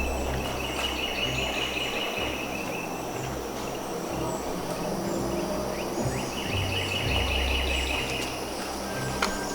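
Background music with low held notes, over outdoor ambience with a high buzzing trill heard twice, about two seconds each.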